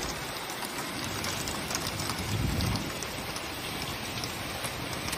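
Heavy rain mixed with hail pouring down: a steady, dense hiss with faint scattered ticks of stones striking.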